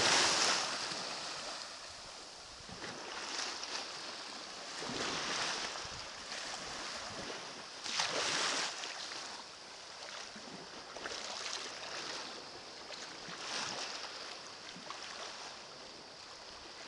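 Small sea waves washing in over a shallow pebbly shore, a splash about at the start being the loudest, then gentler surges every two to three seconds.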